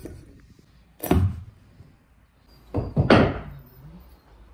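Two heavy thuds about two seconds apart, the second a quick double knock.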